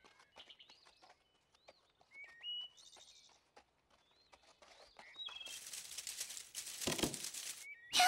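Forest ambience of birds chirping, a few short chirps that step up in pitch. Near the end comes a stretch of rustling with a soft thump in the middle of it.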